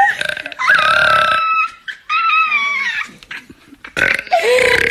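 A person burping loudly: three long, drawn-out belches in a row, each about a second long.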